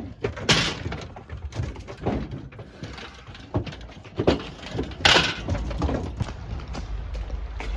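Irregular knocks, thuds and clattering as ewes are moved and loaded into a livestock trailer, with the loudest bangs about half a second in, near four seconds in and about five seconds in.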